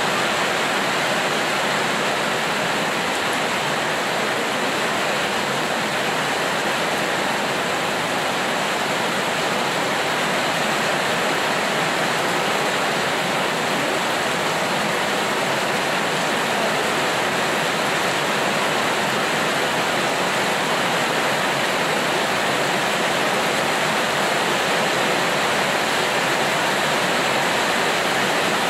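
Steady heavy rain falling, an even, unbroken hiss of water.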